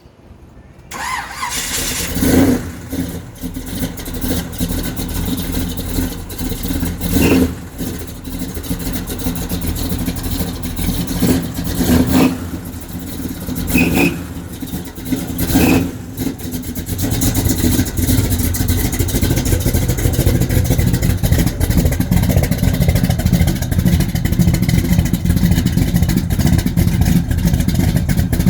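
1970 Chevrolet Chevelle SS big-block V8 starting about a second in, then idling with several short throttle blips, and running steadily louder for the second half.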